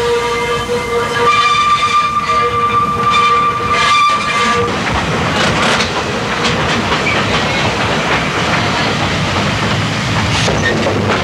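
Electric trolley car running along rails. A steady high tone sounds for the first four to five seconds, then the running rumble and clatter of the wheels on the track goes on alone.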